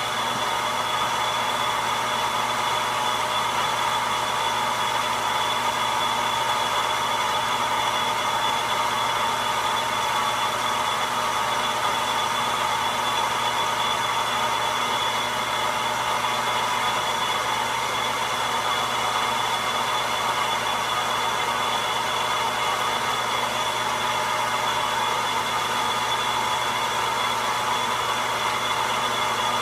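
Logan metal lathe running steadily under power, a constant whir with a steady high whine.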